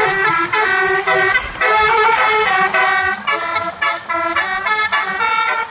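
Basuri multi-tone musical horn (a 'telolet' horn) playing a quick tune of short notes, jumping from pitch to pitch several times a second.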